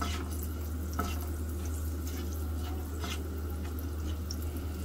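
Garlic, ginger, dried red chilli and asafoetida sizzling gently in desi ghee in a pan, with faint crackles and a few light ticks, over a steady low hum.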